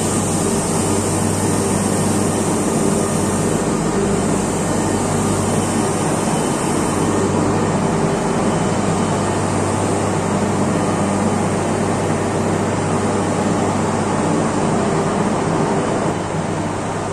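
Steady, loud machinery noise of a power-plant turbine hall: a constant low hum with a high hiss over it, and no single event standing out. It eases off slightly near the end.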